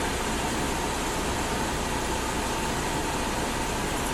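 Baldor 8100W bench grinder motor running steadily at its 1800 RPM speed, an even hum of motor and spinning wheels with a faint steady tone.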